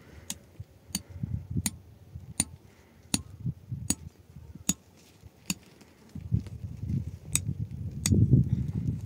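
Hammer blows ringing on metal, evenly spaced at about one every three-quarters of a second. A low rumbling noise runs underneath and grows louder about two-thirds of the way in.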